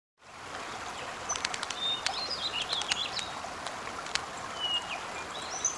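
Birds chirping in short calls over a steady rushing, stream-like background, with a few sharp clicks: an outdoor nature-ambience effect in a game.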